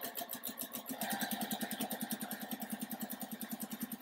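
Juki sewing machine stitching a straight seam in a fast, even rhythm of stitches, a little louder from about a second in. It is sewing two rows of quilt squares together all the way to the end of the seam.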